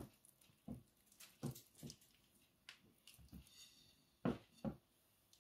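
Wet squelching of a hand working chicken pieces in thick marinade batter: a string of short, faint squishes, the loudest two about four and a half seconds in.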